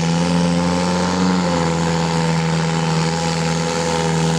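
Zetor 7441 tractor's diesel engine running flat out under heavy load as it drags the pulling sled, a loud, steady engine note holding one pitch.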